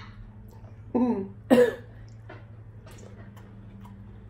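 Two short non-word vocal sounds from a woman, about a second in and half a second apart, then faint scattered clicks over a steady low hum.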